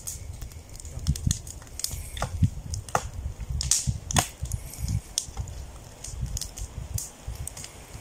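Campfire of branches crackling, with many sharp pops and snaps as a stick pokes into the burning wood and sends up sparks. The strongest snaps come about halfway through.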